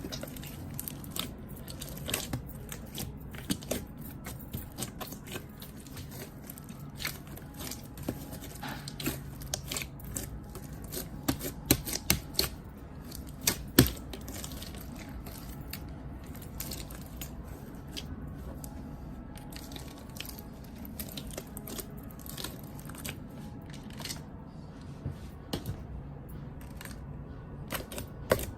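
Hands kneading, stretching and squeezing a large mass of borax slime, giving a dense run of irregular sticky clicks and pops, a few louder pops about halfway through.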